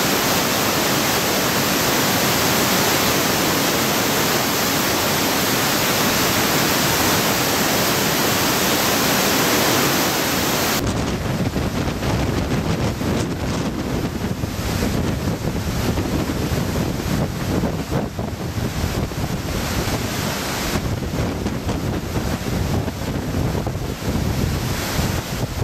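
Floodwater of a typhoon-swollen river in spate, a steady, dense rushing roar. About ten seconds in it cuts abruptly to a deeper, uneven rush of floodwater churning around bridge piers, with wind buffeting the microphone.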